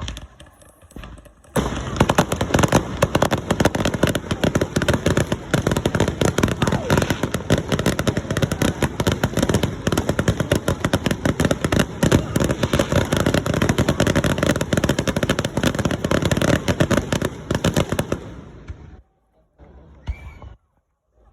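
Fireworks crackling: a dense, very rapid string of sharp pops that starts about a second and a half in, keeps up steadily for about sixteen seconds, then fades out.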